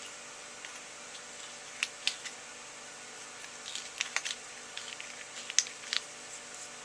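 Scattered light clicks and ticks of small hand tools and metal parts being handled at a machining bench, irregular and bunched into a few clusters, over a faint steady hum.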